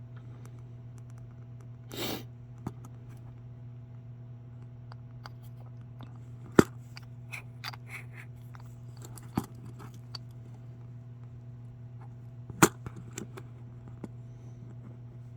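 Small clicks and taps of a plastic scale-model trailer's parts being handled and worked at, with three sharp clicks standing out and a short rustle about two seconds in, over a steady low hum.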